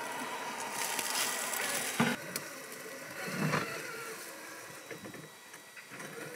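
Axial SCX6 1/6-scale RC crawler working over rock: its electric drive motor and gears running, with tyres and chassis scraping on stone and a sharp knock about two seconds in, then a louder scrape about a second later.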